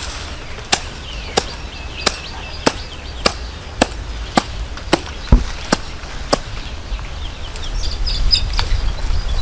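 About ten sharp knocks at an even pace, roughly one every 0.6 s, as a hard object is struck down onto a brick on the ground. The knocks stop a little over six seconds in.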